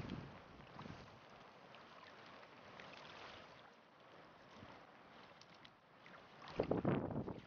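Shallow river water sloshing and splashing softly around a pike held by hand in the water and released. A louder splash comes near the end.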